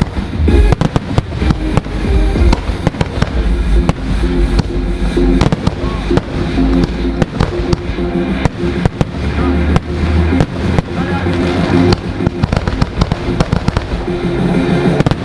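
Fireworks shells bursting in quick, irregular succession, many loud bangs and crackles, over loud music played through a PA sound system.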